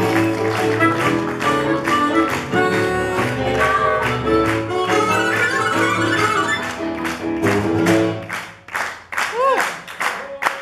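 Live acoustic blues with harmonica and acoustic guitar, holding sustained notes until the song ends about eight seconds in. An audience then claps, with a single whoop of a cheer near the end.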